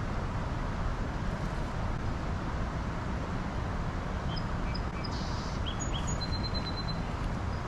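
Steady rush of road traffic, with a few short bird chirps and one held high bird note between about four and seven seconds in.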